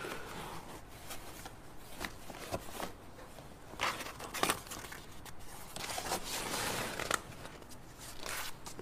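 Hands rummaging through a cardboard box, the cardboard and the objects inside rustling and knocking in scattered short clicks.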